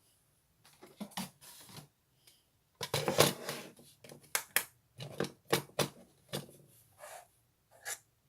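Hands playing with slime: irregular sticky pops, clicks and crackles, with a longer, louder crackling squish about three seconds in.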